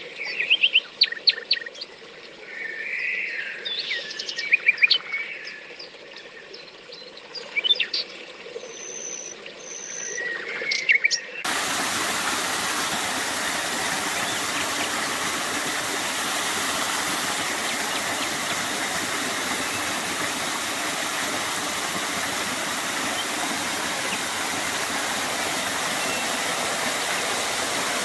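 Songbirds chirping and singing in short trills for the first eleven seconds or so. Then the sound switches abruptly to the steady rushing splash of a small waterfall pouring into a shallow pool.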